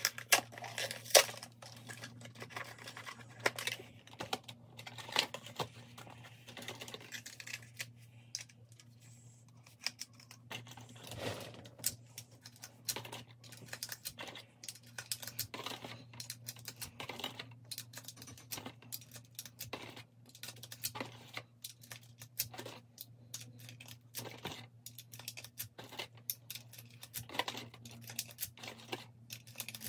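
9mm cartridges being pushed one at a time into a 33-round Glock extended magazine with a speed loader: irregular clicks and snaps as each round seats against the magazine's new, stiff spring.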